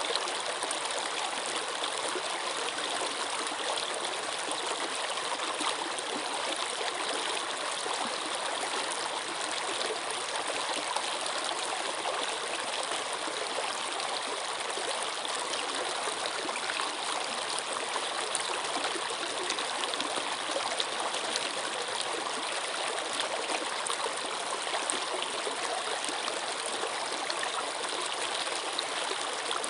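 Running water flowing steadily, like a stream: an even, continuous rush without pauses, stronger in the higher sounds than in the low ones.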